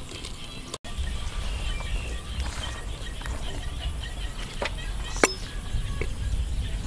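A steel ladle working in a clay cooking pot over a wood fire: scattered sharp clicks and taps, the loudest a little past five seconds in, over a low steady rumble. The sound drops out for an instant under a second in.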